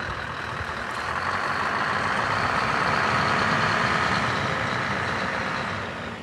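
Scania R500 V8 diesel truck engine running as the bare-chassis truck drives slowly past through a turn. It grows louder toward the middle as the truck comes close, then eases slightly.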